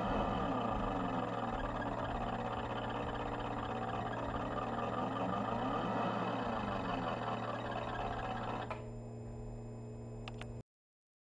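Stepper motor driven by computer-controlled pulses, whining as it turns the pointer, its pitch gliding up and down over and over as the step rate is raised and lowered, over a steady low hum. Near the end the whine thins out to the hum, which then cuts off suddenly.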